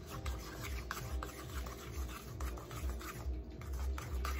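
A utensil stirring a runny mixture in a stainless steel bowl, scraping and tapping against the metal in a quick, even rhythm.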